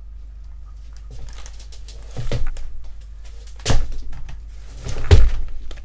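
A person moving about right by the microphone, with rustling and shuffling and three dull thumps about a second and a half apart, the last two the loudest.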